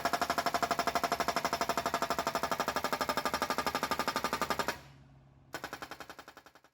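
Hydraulic breaker on a Volvo EC55B mini excavator hammering in a fast, even rhythm of about a dozen blows a second. It stops about three-quarters of the way through, starts again briefly and fades out.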